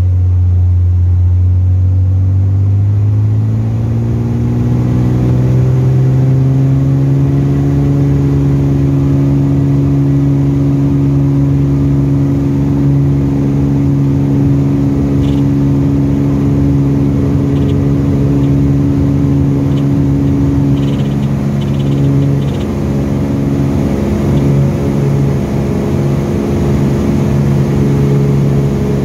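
Cessna U206F's piston engine and propeller heard from inside the cockpit. The pitch rises over the first several seconds as takeoff power comes up, then holds steady at full power through the takeoff roll and into the climb-out.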